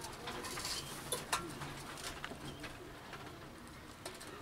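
Screwdriver turning a small screw into the amplifier casing, with a few sharp metal clicks about a second in. A bird cooing in the background.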